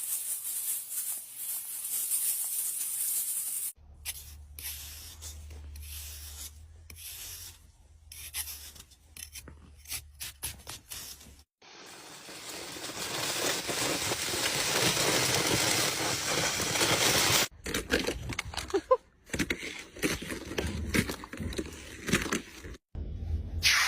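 Snow and ice being scraped and crunched, in several short clips that start and stop abruptly. The longest and loudest is a steady scrape about halfway through.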